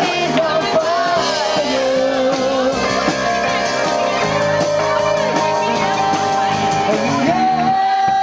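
Live rock band playing: electric guitars, bass and drums under a held, bending melody line.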